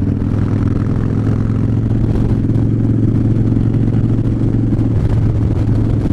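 Harley-Davidson V-twin motorcycle engine running steadily at cruising speed, with a constant low hum and no revving.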